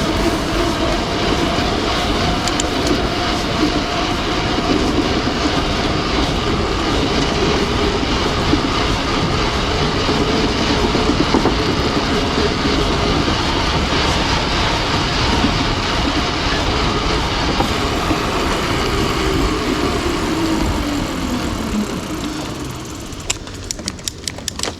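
Mountain bike rolling over a wooden boardwalk, its tyres rattling steadily across the planks with a train-like clatter. Near the end the clatter fades as the bike slows, and a few sharp clicks follow.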